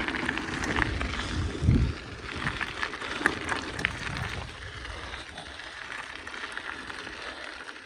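2004 BMX bicycle being ridden along a road: tyres rolling on the tarmac with many light rattling clicks from the bike and wind on the microphone. There is a heavy low thump about a second and a half in, and the sound grows quieter over the second half.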